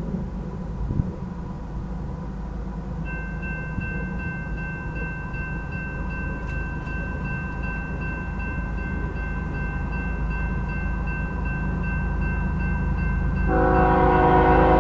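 Railroad crossing signal bell starts ringing about three seconds in as the crossing activates, over a steady low rumble. Near the end the approaching lead locomotive, a GE ES44AC, blows its air horn loudly.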